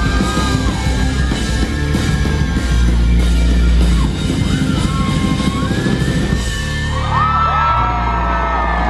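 Live rock band playing loud, recorded from the crowd, with heavy bass and drums and a pitched line gliding over the top.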